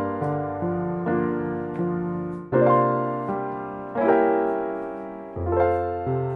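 Background piano music: notes and chords struck one after another, each left to ring and fade, with a low bass note under the chords.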